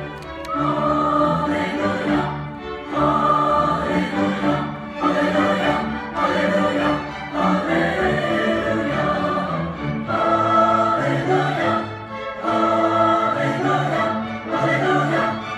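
High school choir singing with orchestra accompaniment, strings prominent, in sung phrases with brief breaks between them.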